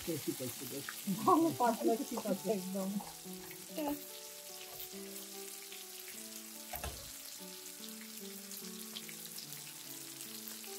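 Hilsa steaks and slit green chilies frying in mustard oil: a steady crackling sizzle. A voice sounds briefly in the first few seconds, then soft background music with held notes plays under the sizzle.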